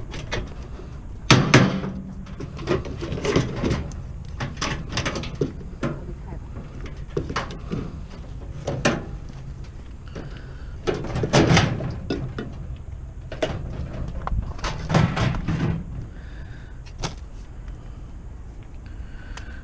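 Metal scrap being handled and pulled apart by hand: irregular clanks, knocks and rattles, the loudest about a second and a half in and again near the middle.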